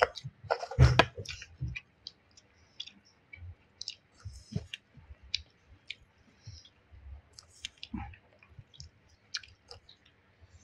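A person chewing food close to the microphone, with small wet mouth clicks and light taps at irregular intervals; a louder cluster of noises comes about a second in.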